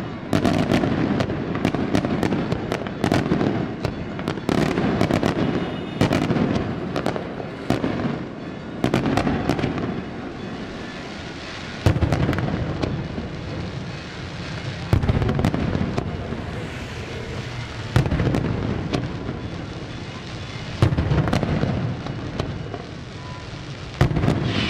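Daytime fireworks display: salute shells bursting in rapid, overlapping bangs over a continuous low rumble. In the second half heavier booms come about every three seconds.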